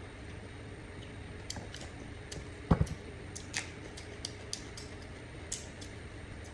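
Eating sounds: scattered soft clicks and smacks of chewing, with one dull double thump a little before the middle, over a steady low hum.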